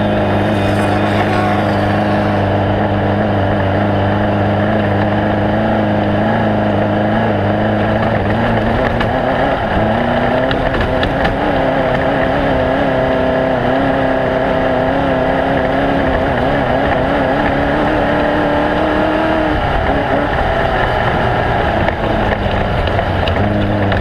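Off-road race vehicle's engine running hard at sustained high revs, its pitch climbing about ten seconds in and falling back a few seconds before the end.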